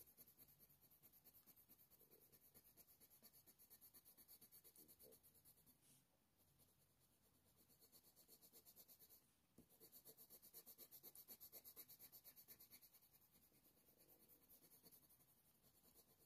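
Faint scratch of an ivory Faber-Castell Polychromos coloured pencil on hot-press watercolour paper, laying in a base layer with quick, even back-and-forth strokes of about five a second. The strokes stop briefly about 6 and 9.5 seconds in.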